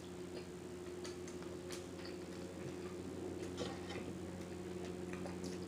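Close-miked chewing with wet mouth-smacking clicks, coming irregularly, over a steady low hum.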